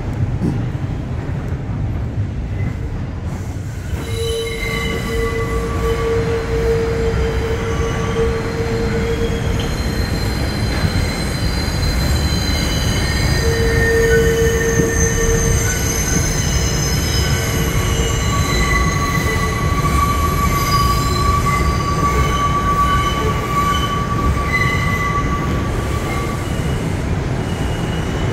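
New York City R142 subway car running through the tunnel, heard from inside the car: a steady rumble of wheels on rail. From about four seconds in, high metallic squealing tones come and go, the strongest in two stretches of a few seconds each.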